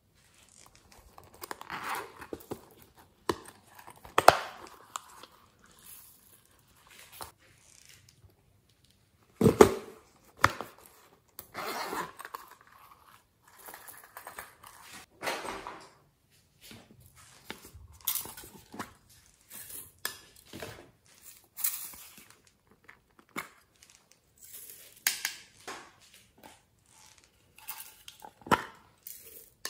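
Small plastic containers and toys being handled, squeezed and opened over a glass dish of glitter and sprinkles, in an irregular run of separate clicks, taps, crinkles and rustles. The loudest knocks come about four seconds in and near ten seconds.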